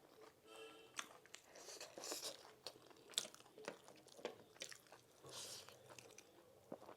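Faint, close-miked chewing of food, with many irregular small crunches and mouth clicks as mouthfuls are bitten and chewed.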